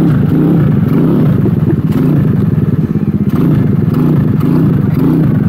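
Honda Navi's small single-cylinder engine running close by, its pitch rising and falling again and again as it is revved.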